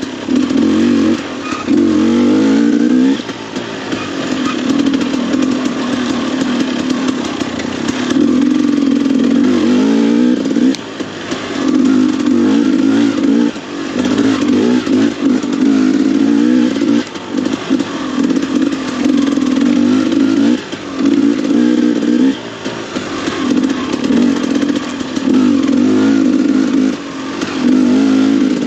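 KTM enduro motorcycle engine under the rider, the throttle opened and closed again and again: each burst of throttle rises in pitch for a second or two, then drops off before the next.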